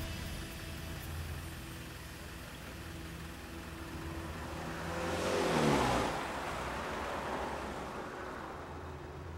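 A car's engine and tyre noise swells loudly about five seconds in, the engine note dropping in pitch as it passes and fades away, over a low steady music drone.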